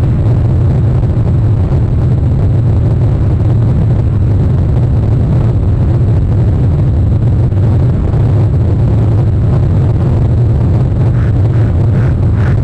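A steady, loud low rumble picked up by an outdoor nest camera's microphone. Near the end comes a short series of faint, evenly spaced bird calls, about two a second.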